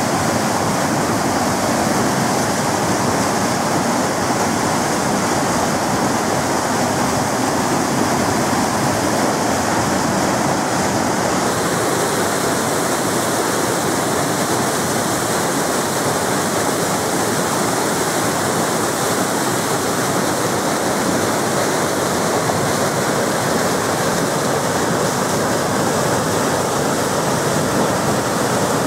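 Turbulent muddy water pouring through a dam's open sluice gates and churning downstream: a loud, steady rush of white water.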